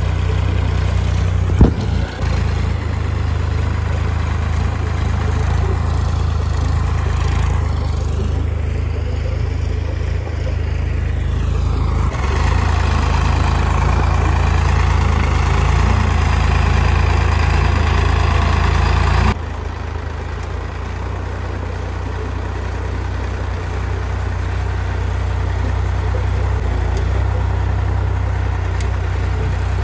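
Tractor engine running steadily as it pulls a cultivator through a field. One sharp click comes about two seconds in, and the sound drops abruptly in level about two-thirds of the way through.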